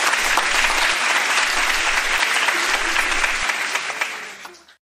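An audience applauding: dense, steady clapping that fades out near the end and then stops.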